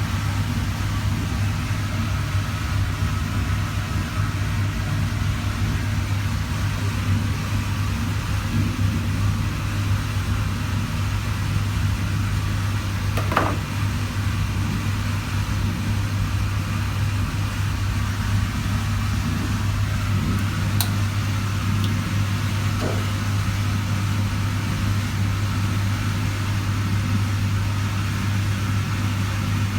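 Steady low electrical hum, with two faint brief ticks, one about halfway in and another several seconds later.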